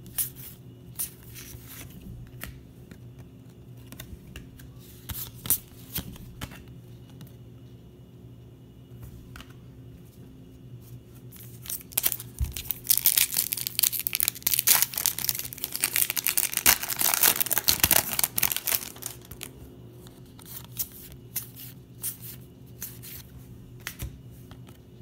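Paper trading cards being handled and flipped, with scattered light flicks and taps. About halfway through, a trading-card pack wrapper crinkles and tears loudly for several seconds as it is opened.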